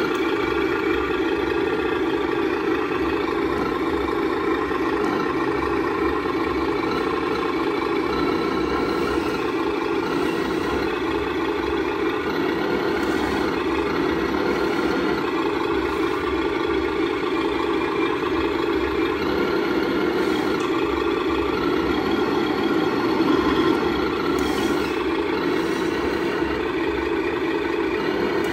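Sound module of a 1/12-scale RC Volvo FH16 truck playing a steady diesel truck engine idle through its speaker.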